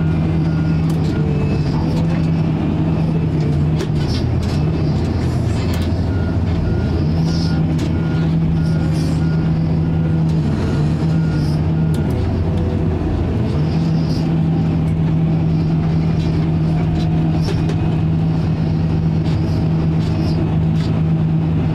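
Case 621G XT wheel loader's diesel engine running inside the cab, its speed dropping and coming back up about four times as the machine works. A backup alarm beeps at the start and again for a few seconds midway.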